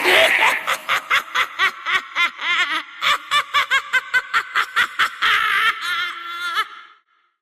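A witch's high-pitched cackling laugh: a rapid run of short cackles, about four or five a second, trailing off near the end.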